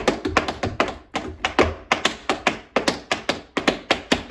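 Tap shoes striking a portable tap dance board in a quick run of sharp taps, about six a second.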